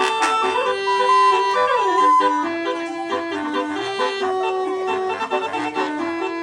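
Bus basuri horn playing a tune in held, reedy notes that step up and down, with a falling slide about two seconds in.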